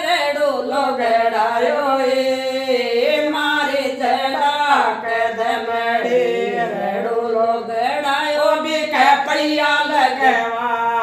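Two women singing a Rajasthani folk jija geet unaccompanied, in long held, sliding vocal lines.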